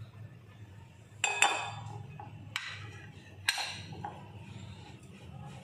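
Kitchen utensils tapping against a glass mixing bowl as spices are tipped in and stirred: a quick double clink just over a second in, then single clinks at about two and a half and three and a half seconds.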